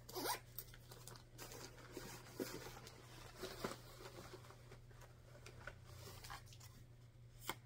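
A hand rummaging in a fabric pouch to draw a slip of paper: soft, scattered rustling and crinkling with a few light clicks.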